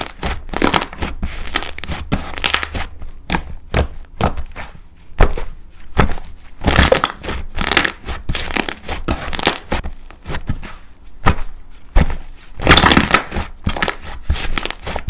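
Hands squeezing and pressing slime, giving irregular bursts of crackling and crunching.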